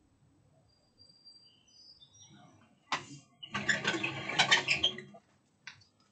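Faint bird chirps as short high whistles, then a sharp knock about three seconds in, followed by a second and a half of loud rustling and clattering close to the microphone.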